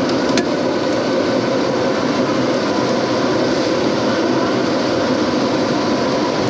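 Bumper boat's small motor running steadily as the boat moves across the pool, a constant even drone with no change.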